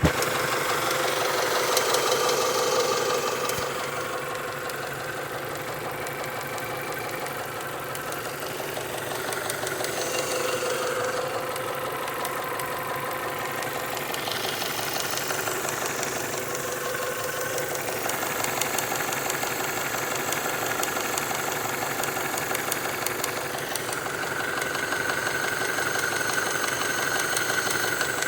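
Honda H23A1 2.3-litre DOHC four-cylinder in a 1996 Prelude Si running steadily with a fast ticking from the top end, which the owner suspects means the valves need adjusting or could be rod knock.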